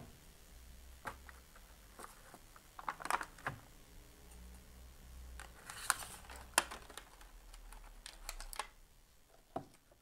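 Scattered light clicks and taps of hands handling a small Bluetooth speaker on a table, the sharpest about three seconds in and twice around six seconds in, over a faint low hum.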